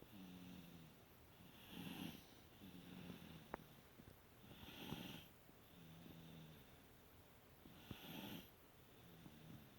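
A sleeping toddler snoring faintly: each slow breath gives a low buzzing snore and then a breathy rush, about one breath every three seconds. A small click sounds once, about a third of the way through.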